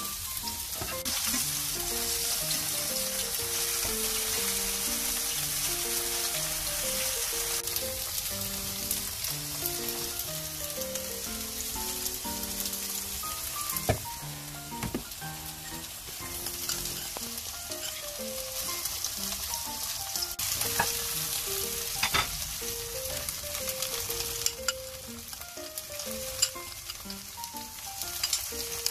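Oil sizzling steadily in a frying pan as cubes of tofu fry, with a few sharp knocks scattered through, under a gentle background melody.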